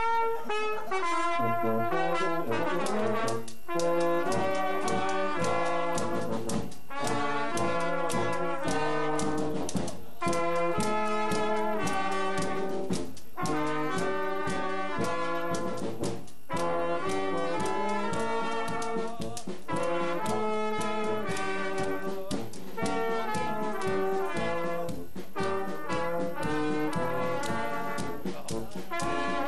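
Brass band playing traditional German Blasmusik: horns carrying a lively tune over a steady beat of drum and cymbal, striking up right at the start.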